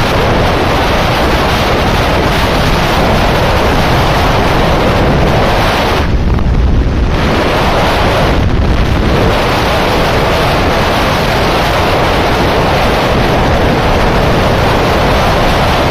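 Loud, steady wind noise rushing over the microphone, heaviest in the low end, easing briefly about six seconds in and again a couple of seconds later.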